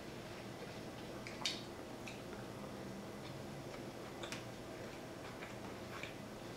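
Quiet eating sounds: a few soft, short mouth clicks and smacks while chewing, the clearest about a second and a half in. They sit over a low, steady background hum.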